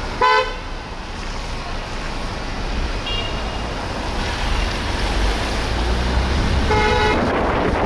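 Steady traffic and road noise with wind, heard from a moving vehicle on a wet street. A short car-horn beep sounds just after the start, and another near the end.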